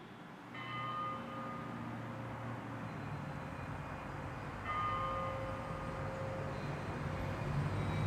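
Church bell struck twice, about four seconds apart, each stroke ringing on as it dies away, over a steady low hum; the sound fades in at the start.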